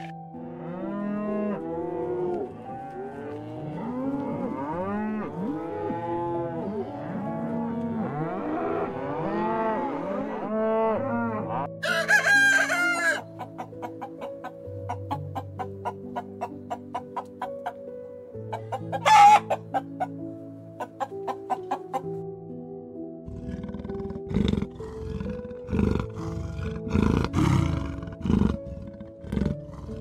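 A rooster crowing twice and hens clucking, over soft background music. Before them comes a run of repeated bird calls for the first dozen seconds, and deep rumbling animal sounds start near the end.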